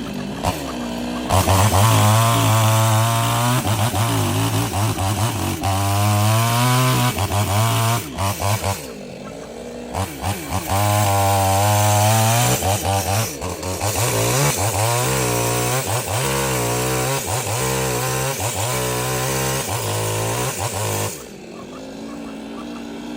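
Chainsaw cutting through dead mango wood, the engine revving up and bogging down again and again under load, with a short lull partway through. The engine sound drops away near the end.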